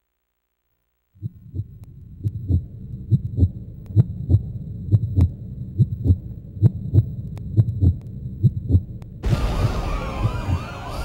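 Heartbeat sound effect: a steady double thump, lub-dub, about once a second over a low hum, starting about a second in. Near the end an ambulance siren begins to wail over it.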